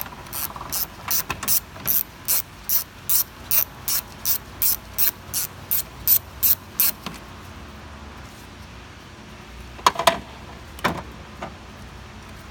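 Ratchet wrench backing out a 13 mm radiator mounting bolt, its pawl clicking evenly about two and a half times a second for some seven seconds, then stopping. Two louder metallic knocks follow near the end.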